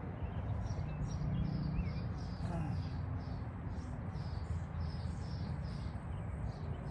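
A small bird chirping over and over, about two short high chirps a second, over a low steady background rumble.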